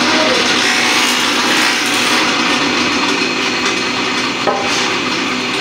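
Belt-driven wood planer running and cutting a wooden board being fed through it, a steady dense cutting noise over the motor's hum. A brief knock sounds near the end.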